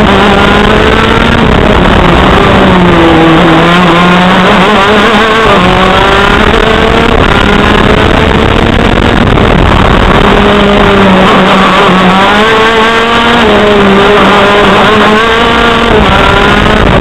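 A KZ shifter kart's TM KZ10C 125 cc two-stroke engine is heard from on board, running hard and very loud. Its pitch sweeps up again and again as it accelerates, then drops back as it slows for corners.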